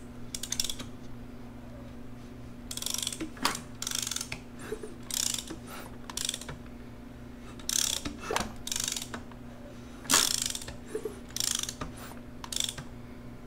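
A wrench on a Harley-Davidson Sportster's engine sprocket nut, worked in about a dozen short, irregular strokes of mechanical clicking as the engine is turned over by hand. The engine is being rotated to check that the valve train clears the newly fitted rocker cover. A steady low hum runs underneath.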